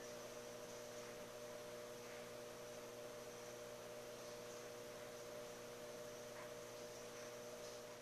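Steady electrical hum of running aquarium equipment over a faint even hiss.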